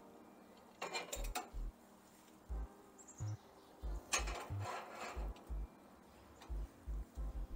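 Cast iron pie irons clanking against a grill grate as they are set down and shifted: a cluster of metal clinks about a second in and another about four seconds in. Quiet background music with a low beat runs underneath.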